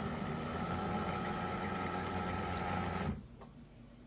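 Terra Kaffe TK-02 super-automatic espresso machine running its setup cycle: a steady mechanical hum from its internal pump that cuts off about three seconds in.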